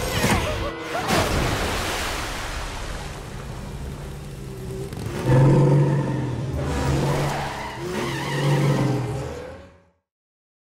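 Cartoon car-chase sound effects: a car's engine running hard with screeching tyres, fading out to silence near the end.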